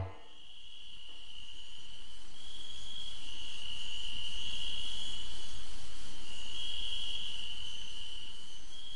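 Crickets trilling: one steady high chirring that wavers slightly, swelling in over the first few seconds and easing off near the end.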